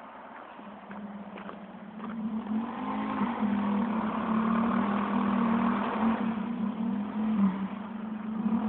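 A trike's engine running in the distance, getting louder about two seconds in as it approaches, its pitch rising and falling with the throttle.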